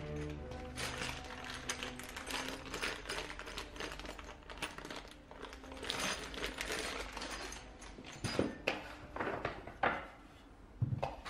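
Clear plastic bag of flat-pack hardware being handled: the plastic crinkles while the metal bolts, screws and wooden dowels inside clink against each other. A dull knock comes near the end.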